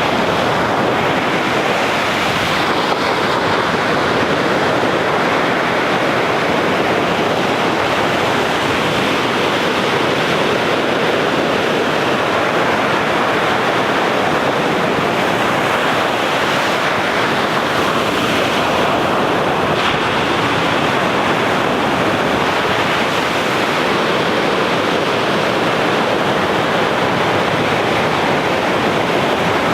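Sea waves breaking and surging on the shore: a continuous, steady rush of surf.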